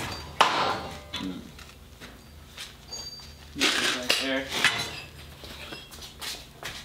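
Metal clinks and knocks from a MIG welding gun and steel clamps being handled on a steel welding table. A sharp knock comes about half a second in, and a louder rattling stretch follows a little past the middle.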